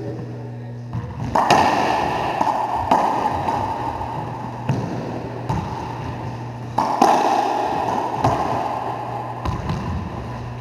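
Racquetball rally: the ball cracking off racquets and the court walls, a hit every second or two, each one echoing loudly around the enclosed court. A steady low hum runs underneath.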